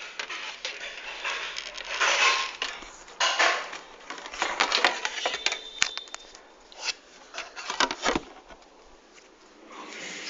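The plastic casing of an iBall WP5540 pen tablet being pried apart and handled: irregular clattering, scraping and sharp clicks, quieter near the end.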